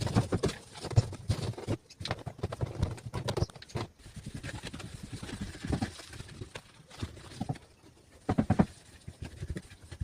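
Irregular knocks, taps and clatter of household objects being handled and set down while a refrigerator is cleaned, with a louder burst of knocks near the end.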